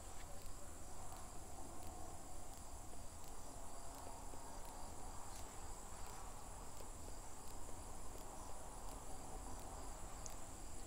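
Faint, steady high-pitched trilling of crickets, with a low hum underneath and a few faint light ticks.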